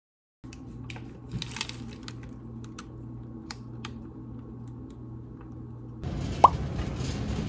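Light clicks and taps of kitchen handling over a low hum. About six seconds in, a louder, hissier scene begins with water drops plopping, about one a second.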